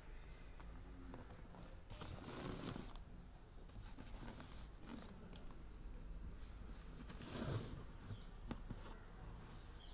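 Faint rubbing and rustling handling noise, with two louder scraping swishes, one about two seconds in and one about seven seconds in, and a few small clicks.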